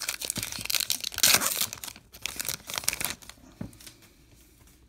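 A baseball card pack's wrapper being torn open, crinkling and tearing for about two seconds, loudest a little over a second in. A few short soft clicks follow as the cards are handled.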